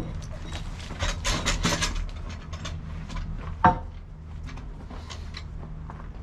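A large log levered with a peavey rolls over onto a portable sawmill's bed. There is a second of scraping and knocking, then one sharp wooden knock a few seconds in as it settles.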